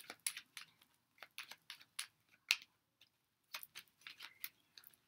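Tarot cards being shuffled and handled: a run of quiet, irregular clicks and flicks as the cards slide and snap against each other.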